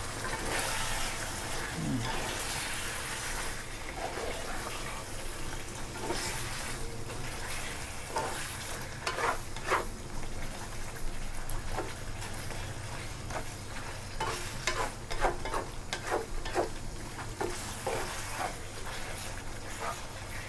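Pork frying and sizzling in Panang curry in a pan while it is stirred, with a spatula scraping and clicking against the pan many times.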